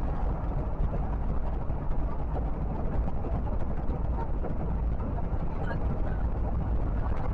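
Steady rumble of a vehicle cruising on a highway: road and wind noise, strongest in the deep bass, with no distinct events.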